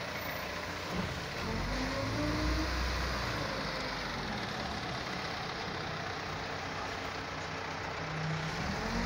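Caterpillar wheel loader's diesel engine running under varying load as the loader works a sand pile, its pitch rising and falling as the throttle changes, and rising again near the end.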